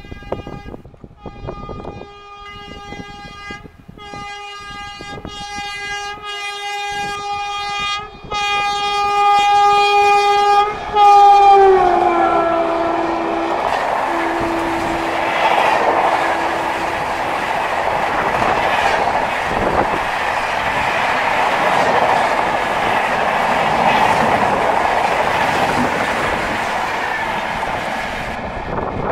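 Express train sounding its horn in several long blasts as it approaches, the pitch dropping as the locomotive passes about twelve seconds in. Then comes the loud rushing and clatter of the coaches going by at speed, fading near the end.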